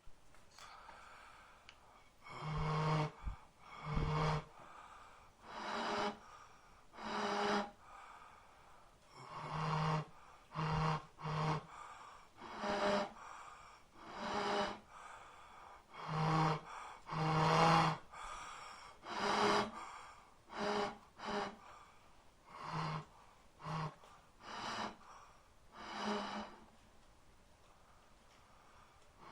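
Repeated breathy, gasping vocal sounds, one every one to two seconds, each lasting under a second.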